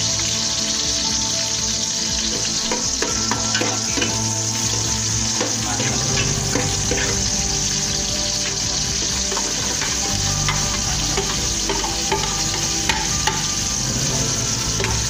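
Sliced red onions sizzling and crackling in hot oil in an aluminium pot, stirred with a metal ladle. Chopped garlic and chillies are tipped into the oil partway through.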